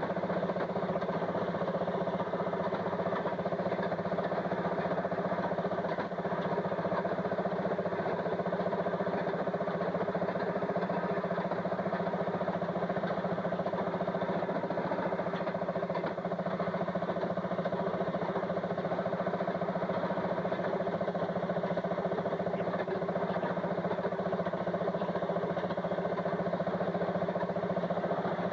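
An engine running steadily at an even speed throughout, with no revving or stops.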